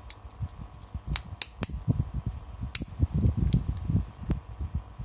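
Sharp plastic-and-metal clicks, about half a dozen spread irregularly, as a metal ring is fitted and turned inside a 3D-printed Beyblade Burst layer. Under them is a low, uneven rumble of fingers handling the parts.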